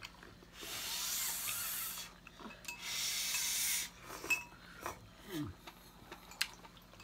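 Two long slurps of hot noodle soup, each lasting about a second, followed by light clicks of chopsticks and bowls.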